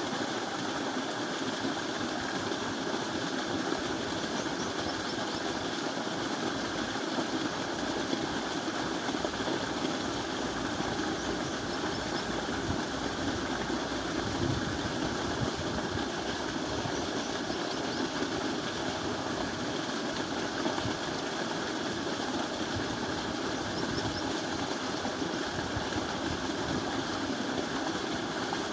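A machine running steadily with an engine-like rattling noise that holds even throughout.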